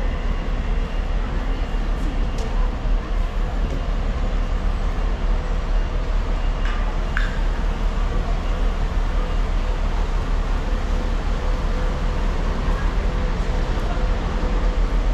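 Bus terminal ambience: a steady low rumble of buses and road traffic, with faint voices of people.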